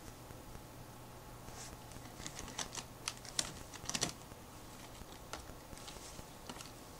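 A ferret's claws scrabbling and tapping on the plastic walls of a tube made of taped-together plastic bottles: a run of light clicks and crackles, thickest around the middle, with scattered ticks after.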